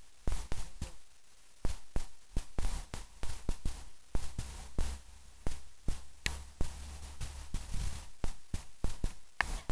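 Irregular light taps and knocks close to the microphone, several a second, over a low rumble.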